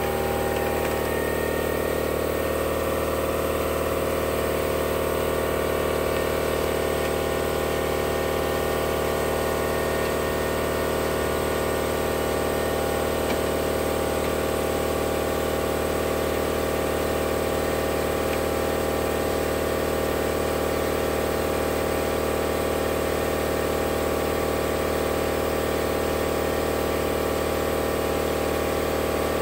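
A motor or engine running steadily at an unchanging speed.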